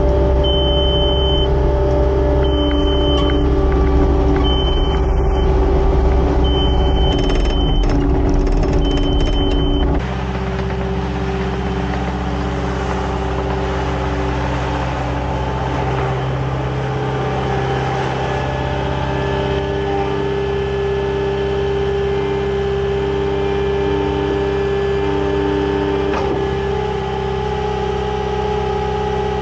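Skid steer engine running steadily. For the first ten seconds its warning alarm gives a high beep about every two seconds, sounding the 'unexpected motor speed detected' drive fault. About ten seconds in the engine note drops lower and a little quieter.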